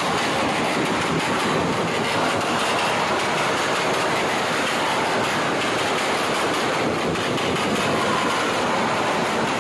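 Motorcycle engines running, a steady, dense mechanical noise that does not rise or fall.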